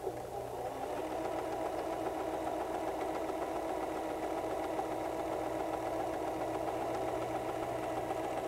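White 1735 domestic sewing machine starting up and running at a steady speed, stitching a wide three-step zigzag along a fabric edge to finish it against fraying.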